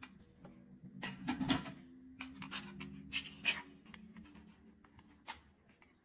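Faint handling noise: a handful of light plastic clicks and taps as a small dental tip is taken out of its plastic tray and the obturation gun is set down in its charging base.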